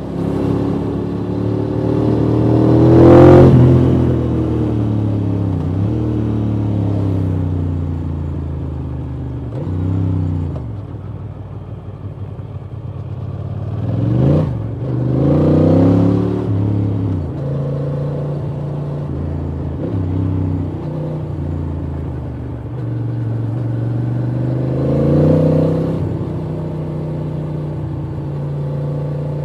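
Ducati Monster 620 i.e.'s air-cooled L-twin engine pulling the bike along, its pitch rising under throttle and dropping back at gear changes several times. It is loudest about three seconds in, with further accelerations around the middle and near the end.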